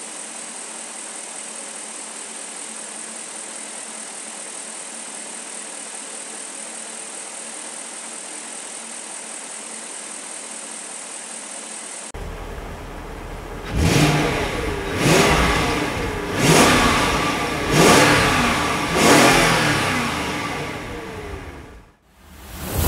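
BMW M62TU V8 engine idling steadily, running on all eight freshly replaced ignition coils. About twelve seconds in it is revved in five quick blips, roughly one every second and a quarter, each dropping back before the next, and the sound cuts off near the end.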